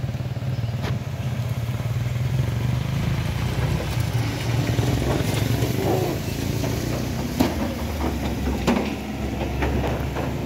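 Vehicle engine running steadily at low revs, a deep continuous drone. Two sharp knocks stand out in the second half.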